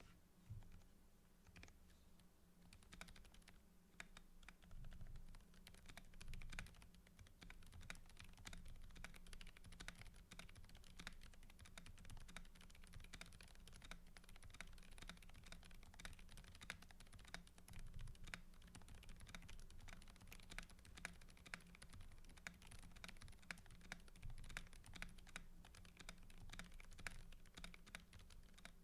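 Mechanical keyboard being typed on: a fast, irregular run of key presses, sparse at first and continuous from about three seconds in, over a faint steady hum.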